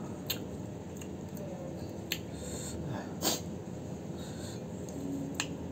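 Eating sounds from chewing crisp green water apple: a few sharp mouth clicks and a short, louder noisy burst about three seconds in, over a steady background hiss.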